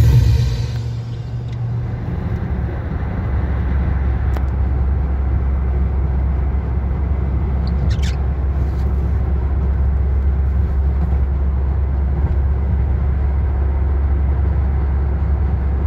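Steady road noise inside a car cruising on a motorway: a constant low rumble of tyres and engine with a wash of noise over it.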